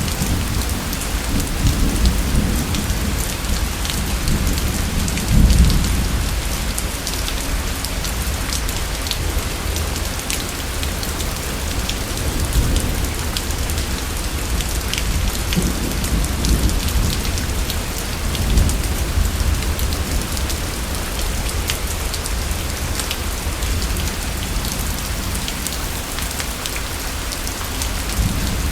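Steady heavy rain falling, with low rumbles of thunder swelling and fading several times, the loudest about five seconds in.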